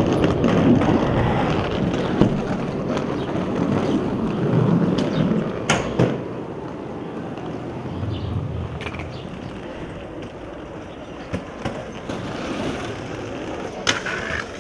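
Skateboard wheels rolling over stone paving slabs, loud at first and fading after about six seconds. A sharp clack comes about six seconds in, then a few lighter clicks, and another clack near the end.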